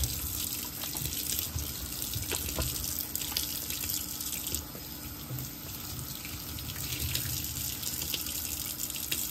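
Kitchen faucet running water into the sink while it is being washed, with a few light knocks.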